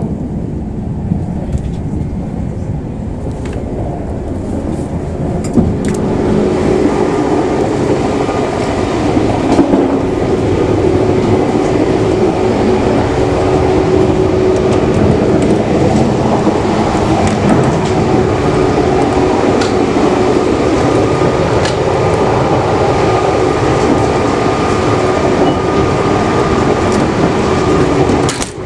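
Steady rumbling mechanical noise of a JR 381 series limited express train, with a continuous hum in it. It grows louder about six seconds in, then holds steady.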